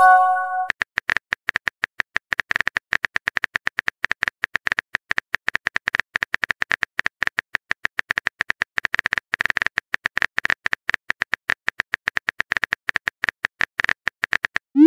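Fast, uneven run of keyboard-tap clicks, a texting app's typing sound effect as a message is typed out letter by letter. A short chime opens it, and a quick rising whoosh near the end marks the message being sent.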